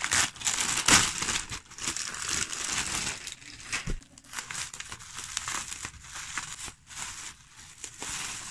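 Plastic bubble wrap crinkling and crackling as a bubble-wrapped parcel is handled and opened: packing tape pulled away and the wrap cut with scissors. Irregular crackles with scattered sharp snaps, the loudest about a second in.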